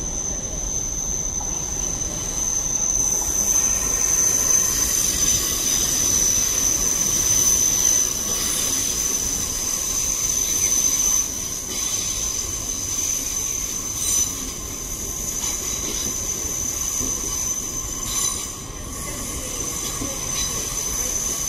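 Steel wheels of a Great Western Railway Intercity Express Train squealing on the curved platform track: a steady high-pitched squeal over the rumble of the moving train.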